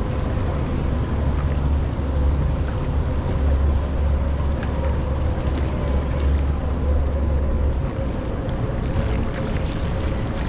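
Steady low rumble of a tour boat's motor running, with rushing water and wind on the microphone. The rumble eases slightly about eight seconds in.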